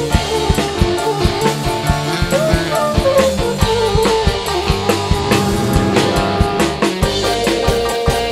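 A live dangdut band playing an instrumental passage: a drum kit keeping a busy, steady beat under bass and a melodic lead line that slides and bends in pitch.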